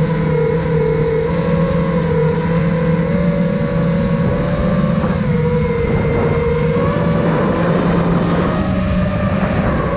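Brushless motors and propellers of a 5-inch FPV quadcopter, an iFlight Nazgul Evoque F5, whining in flight, with wind rushing over the microphone. The motor pitch wavers with the throttle and climbs a little late on.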